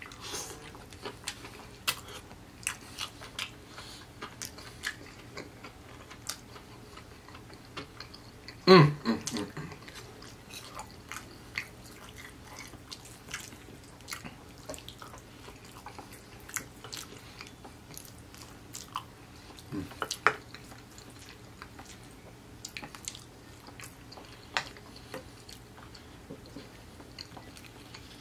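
A person biting and chewing fried chicken and a cheesy rice side dish: many small sharp crunches and wet mouth clicks. There is one short, loud sound from the voice about nine seconds in.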